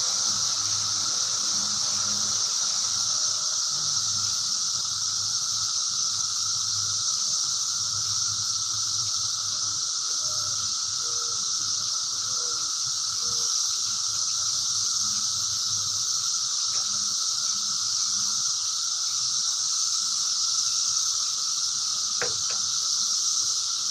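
A steady high-pitched hiss that holds unchanged throughout, with a fainter steady drone beneath it, and a faint click near the end.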